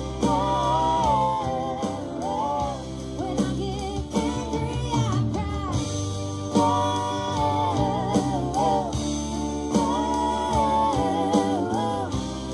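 Live rock band playing: a woman singing over acoustic and electric guitars, bass and drums.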